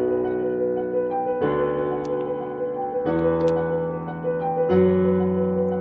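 Piano music played on an electronic keyboard: low chords held and changing about every second and a half, three changes in all, under a repeating pattern of higher notes.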